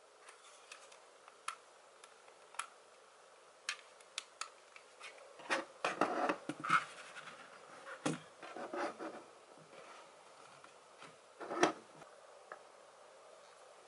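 Handling of a Logitech Pebble M350 mouse and K380 keyboard on a wooden desk: scattered light plastic clicks and taps, a busier stretch of rubbing and knocking around the middle, and a firmer knock near the end as the devices are set down.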